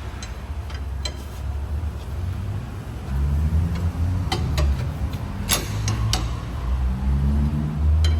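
A motor running with a low hum that grows louder about three seconds in and swells and eases in stretches, with several sharp clicks and knocks in the middle and again near the end.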